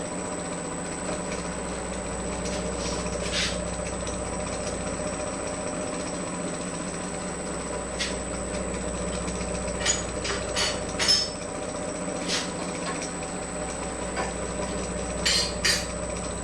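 A steady machine hum with a thin high whine, and a few scattered sharp metallic clicks and knocks, most of them bunched in the second half.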